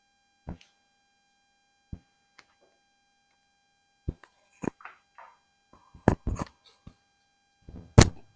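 Irregular knocks and clicks, sparse at first and then coming thicker after about four seconds, the loudest near the end, over a faint steady high tone.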